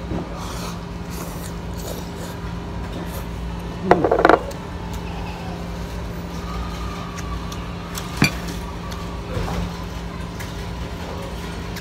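Restaurant dining-room background with a steady low hum. A short pitched sound comes about four seconds in, and a single sharp clink of tableware about eight seconds in.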